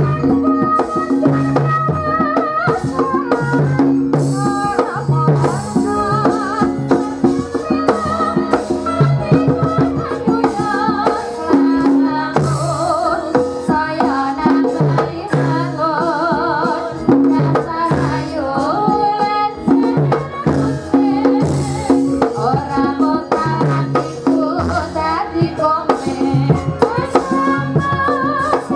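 Javanese gamelan ensemble playing dance music: held metallophone and gong notes, busy hand-drum strokes and rattling percussion, with a wavering sung melody over them.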